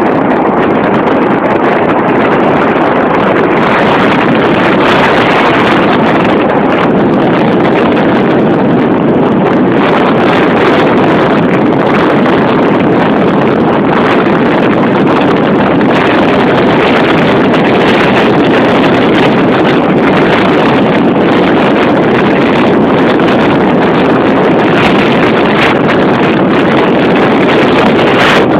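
Car driving along a road: loud, steady rushing wind and road noise on the microphone, with no let-up.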